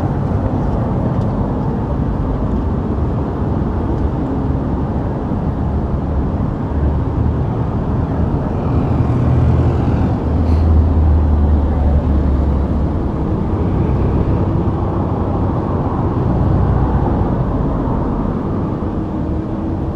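Road traffic on a multi-lane road: a steady rumble of engines and tyres, swelling about ten seconds in as a heavier vehicle passes.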